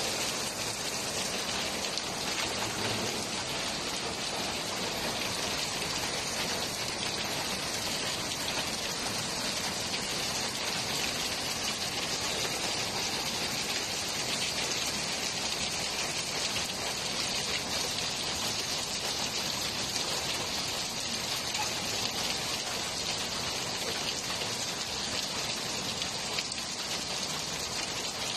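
Heavy rain falling steadily on a flat concrete rooftop, an even hiss of drops with no letup.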